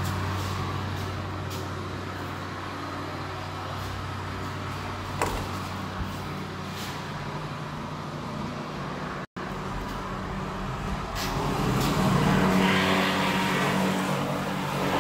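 A steady low mechanical hum with a few sharp clicks; the sound grows louder and noisier a few seconds before the end.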